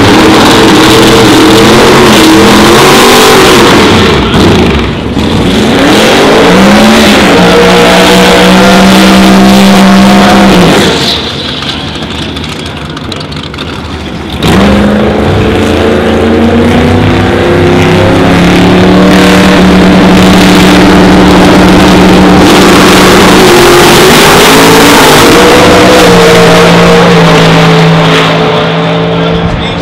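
Two Pro Mod drag-racing cars, one of them a twin-turbocharged 526 ci Camaro, run very loudly with their engines revving in rising sweeps and held at steady high revs. There is a quieter lull near the middle, then the engines run loud again as the cars stage and launch down the strip.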